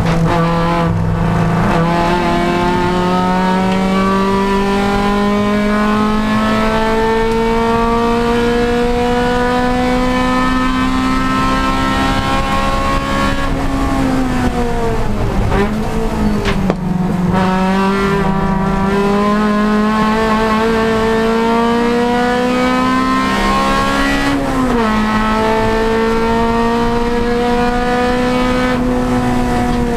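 Honda Civic Si race car's four-cylinder engine heard from on board, pulling steadily up through the revs under full throttle. It shifts up about a second in and again near the end. Around the middle the revs fall away for a few seconds with short blips as it slows and downshifts, then climb again.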